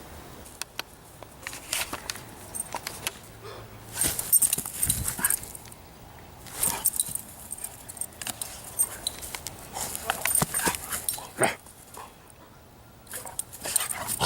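A series of loud animal calls in irregular bursts, with a short lull about twelve seconds in.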